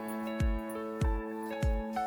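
Background music: held notes over a steady low beat, about one thump every 0.6 seconds.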